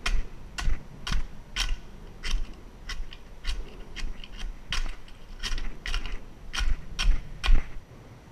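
Long metal pole scraping and striking barnacles off a concrete bridge piling, a sharp scrape about twice a second, stopping near the end. This knocks the barnacles loose as chum for sheepshead.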